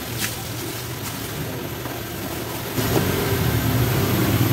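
A motor running steadily with a low hum, growing louder about three seconds in.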